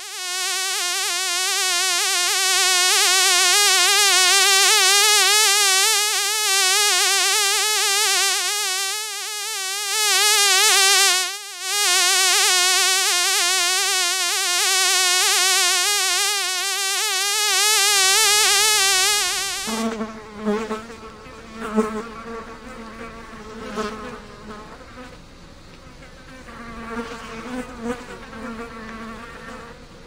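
A fly's wings buzzing close up: a steady, high buzz that wavers slightly in pitch, with a brief break near the middle. About two-thirds of the way through it gives way to a fainter, lower buzzing that comes and goes in short bursts.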